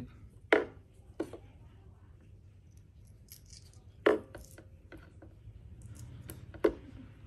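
Light clicks and small rattles of thin wires, heat-shrink tubing and a battery pack being handled, a few sharp clicks spaced a second or more apart.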